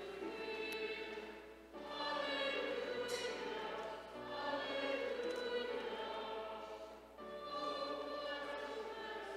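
A congregation singing together, in phrases with two brief breaks between them.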